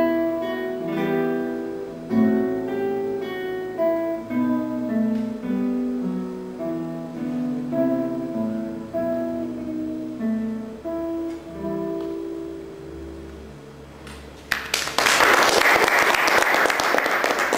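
Classical guitar built by Pavlos Gypas, played fingerstyle through the closing bars of a baroque passacaille, with single plucked notes over a bass line, slowing into a final chord that fades. About three-quarters of the way through, audience applause breaks out, louder than the guitar.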